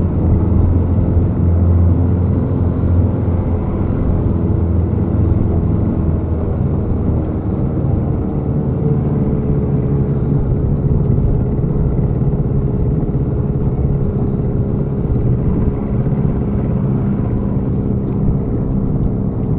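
Small boat outboard motor running steadily, pushing a jon boat across a river, with water rushing along the hull. Its note shifts about seven seconds in. The motor has been acting up, which the owner suspects is a spun gear.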